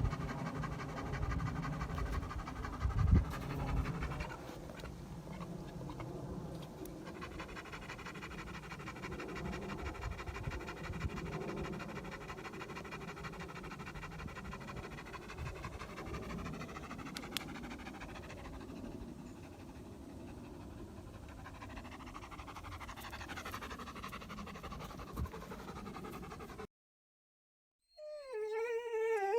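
An animal vocalising in one long, drawn-out sound with many overtones that cuts off abruptly near the end. After a brief silence, a different wavering call begins.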